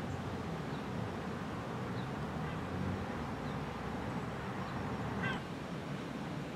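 Steady outdoor ambience with a low rumble, a few faint high chirps, and one short call about five seconds in.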